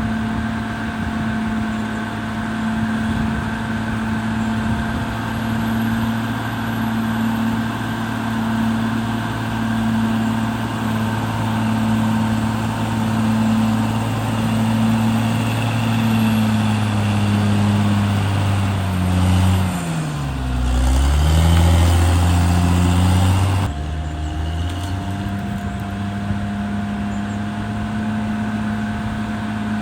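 Caterpillar D6R XL bulldozer's diesel engine running steadily, with a faint steady whine above it. About two-thirds of the way through, the engine pitch dips and climbs back, then it runs louder for a few seconds before dropping back abruptly to its steady note.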